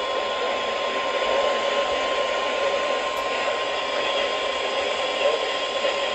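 NOAA Weather Radio 1050 Hz warning alarm tone, one steady high tone held throughout, heard through heavy radio static hiss. The tone is the alert signal that turns on weather radio receivers ahead of a warning or watch message.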